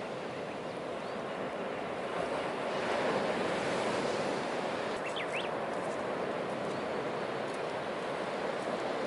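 Sea waves washing on the shore in a steady wash that swells about three seconds in, with a couple of short high chirps a little past halfway.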